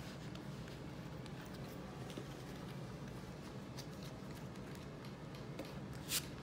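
Skip-Bo cards being handled and laid on a tray table: faint small clicks and taps, then one short card slide about six seconds in, over a steady low room hum.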